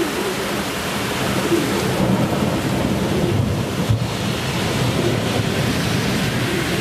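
Steady rushing spray of a spherical dandelion fountain mixed with heavy rain, over a low rumble that swells and fades.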